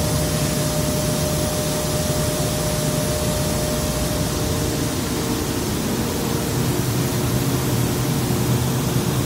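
Atlas Copco GA 160+ rotary screw air compressor running loaded at about 8.6 bar: a steady, loud rush of air and machine noise under a low hum, with a thin higher tone that drops out about four seconds in.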